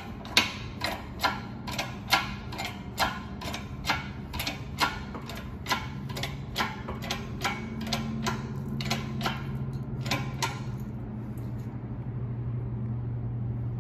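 Hydraulic shop press being pumped to press a tapered roller bearing onto a Dana 30 differential carrier: a run of sharp clicks, about two a second, that stop about ten and a half seconds in. A steady low hum runs underneath.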